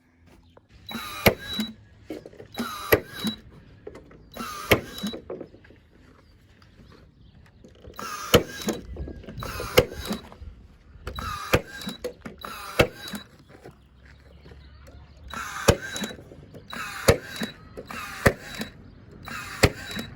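Nail gun firing into wood framing: about a dozen short, sharp shots, often in pairs one to two seconds apart, with a pause of a couple of seconds partway through.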